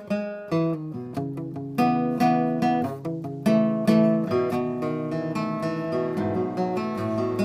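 Acoustic guitar played alone: picked chords, a new note or chord every fraction of a second, the notes ringing into one another.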